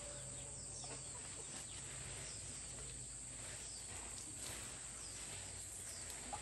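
Rural garden ambience: a steady, high-pitched insect buzz with scattered short bird chirps over it.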